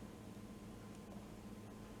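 Quiet room tone with a low steady hum and one faint tick about a second in.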